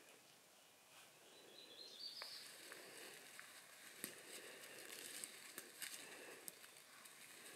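Faint footsteps crunching through dry leaf litter and twigs on a forest floor, as scattered soft crackles that pick up about two seconds in. A short high rising chirp sounds about a second and a half in.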